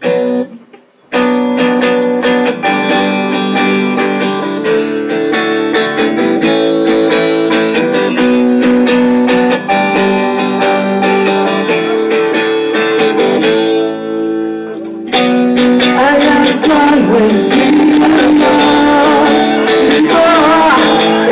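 Live rock band playing: electric guitar chords starting about a second in, then a male singer comes in over the band about three-quarters of the way through.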